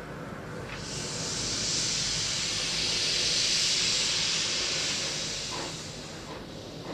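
Steam hissing steadily from the LSWR B4 dock tank locomotive Normandy. It swells about a second in and eases off again near the end.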